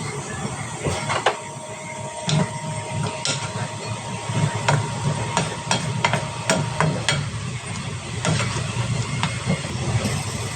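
Irregular sharp knocks and taps of kitchen work, such as utensils striking a cutting board or cookware, over a steady background hiss.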